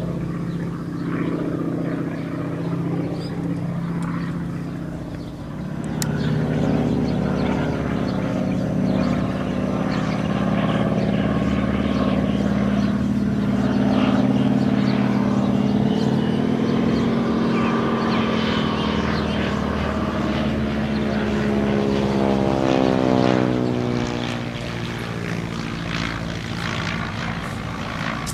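Propeller aircraft engines droning overhead. From about six seconds in, a North American SNJ (T-6 Texan) trainer's nine-cylinder radial engine runs loud as the plane flies by low, its pitch falling as it passes near the end.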